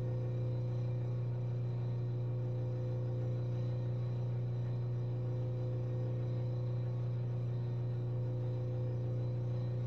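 Steady electrical hum: a strong low tone with fainter higher tones above it, unchanging throughout.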